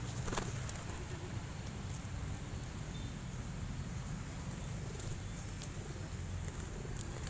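Domestic pigeons cooing low over a steady outdoor rumble, with a few faint clicks scattered through.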